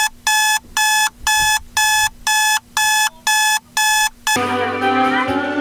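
Buzzy electronic countdown beeps, about two a second. The beeps stop about four seconds in, and music starts.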